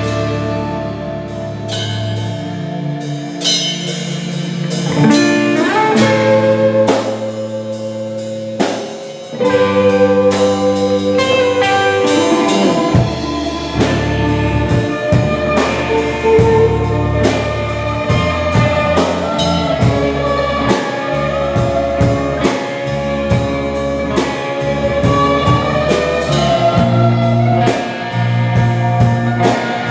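Live rock band playing instrumentally: electric guitars over a drum kit. The low end drops out twice in the first ten seconds, and the full band with bass comes back in about thirteen seconds in.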